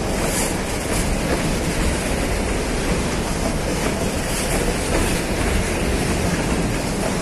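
Empty freight boxcars rolling past close by: a steady rumble and rattle of steel wheels on the rails, with a few faint clicks.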